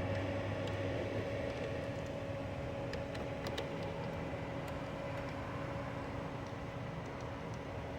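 Steady mechanical hum with a few faint clicks about three to five seconds in.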